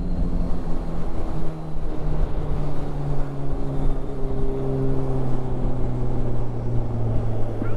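Motorcycle engine running at road speed with wind rushing over the helmet-mounted microphone; the engine note drops gradually, in small steps, as the bike slows.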